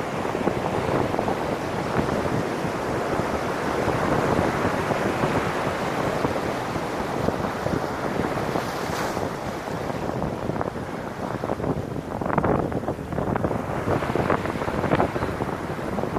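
Ocean surf washing in over rocks and sand, a steady rushing wash, with wind buffeting the microphone, more ragged in the last few seconds.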